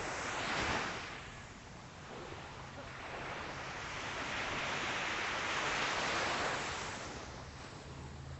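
Small, calm ocean waves breaking on the beach. One short wash comes near the start, then a longer wave swells from about three seconds in and fades away near the end.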